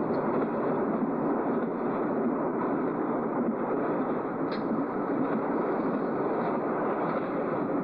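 Steady rushing noise, with a single faint click about four and a half seconds in.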